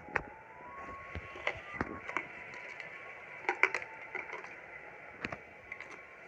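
A few light clicks and knocks of kitchen utensils and containers, scattered irregularly over several seconds, as ingredients are added to the pot.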